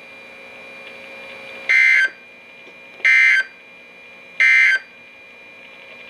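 Three short bursts of NOAA Weather Radio SAME digital data played through a weather radio's speaker, a raspy two-tone warble repeated about every 1.4 seconds over faint radio hiss. The three short bursts right after the spoken message are the end-of-message code that closes the Required Weekly Test.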